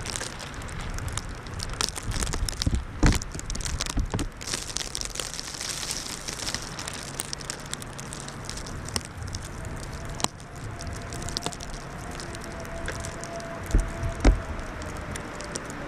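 Plastic trash bag crackling and rustling, with many small crackles and a couple of dull knocks, one about three seconds in and two near the end.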